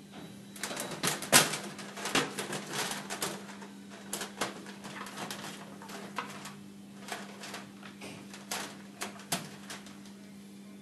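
Wires being handled and pressed against a troffer's sheet-metal housing: irregular clicks, taps and rustles, thickest in the first few seconds and sparser after, over a steady low hum.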